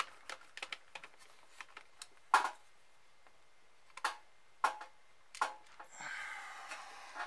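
Clicks and clacks of hard plastic headphone ear-cup parts being handled and pressed together, a few sharp ones spread through, the loudest about two seconds in. Near the end comes about a second of scraping rustle.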